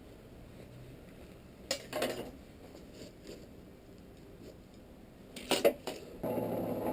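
A few light, scattered metallic clinks of blacksmith's tongs and bar stock being handled at the anvil. A low steady hum starts near the end.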